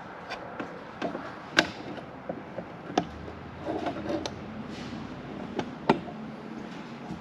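Exhaust parts and tools being handled during an exhaust swap: scattered sharp knocks and clicks, about half a dozen, with quieter rattling between them.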